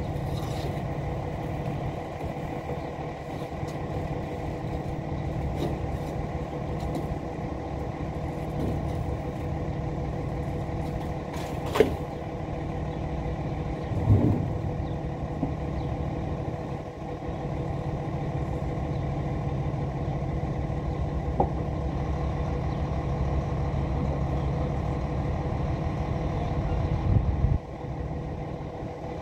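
Flatbed tow truck's engine running steadily, with two sharp knocks about halfway through; the engine sound drops off suddenly near the end.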